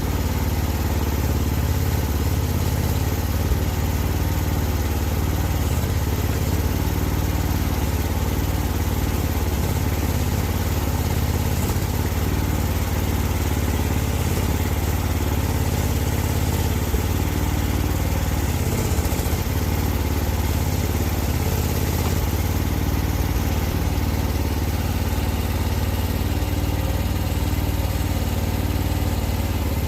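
Mini excavator engine running steadily at a constant pitch.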